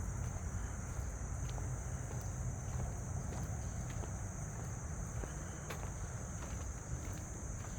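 Steady high-pitched chorus of insects such as crickets, over a low rumble and a few faint clicks.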